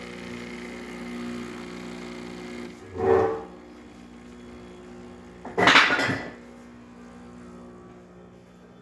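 Breville espresso machine's newly replaced vibratory water pump humming steadily as it pushes water through the portafilter for an espresso shot. Two brief louder sounds break in, about three and six seconds in.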